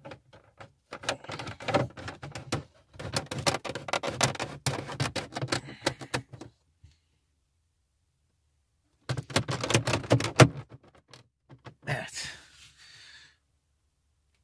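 Hard plastic instrument-cluster hood being pressed and snapped into the dashboard by hand: rapid runs of clicks and knocks, a pause, then a second shorter run, and a brief rustle near the end.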